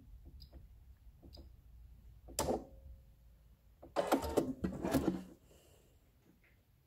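Sewing machine stitching in short starts and stops: a brief run about two and a half seconds in, then about a second of stitching near the middle, with quiet between. It is running a second pass of stitching over a line in fabric laid on soluble film.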